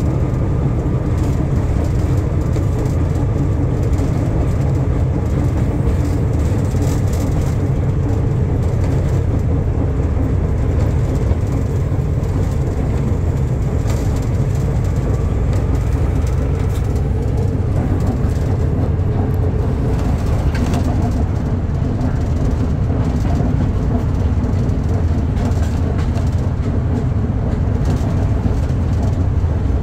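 Class 14 diesel-hydraulic locomotive's Paxman Ventura V6 diesel engine running steadily under way, heard from the cab along with the train's running noise.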